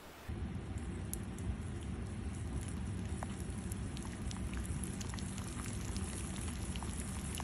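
Rain falling steadily into a puddle and onto wet ground, a dense patter of many small drop impacts that starts suddenly just after the beginning.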